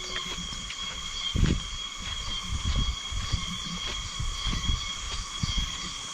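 Steady high-pitched drone of a forest insect chorus, with irregular low thumps, the strongest about one and a half seconds in.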